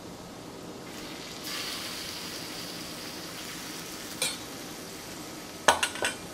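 Chicken strips sizzling in hot oil in a wok, the sizzle swelling about a second and a half in as the chicken goes in. A few sharp clinks near the end.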